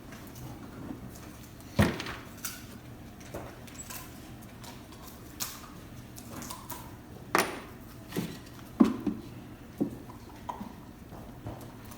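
Irregular knocks and clunks of wooden beehive box parts being handled and fitted, with the loudest near two seconds in and a cluster between about seven and ten seconds.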